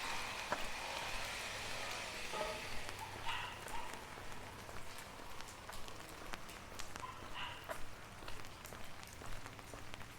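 Rain falling, with many separate drops ticking sharply on hard surfaces close by, and a few brief faint tones.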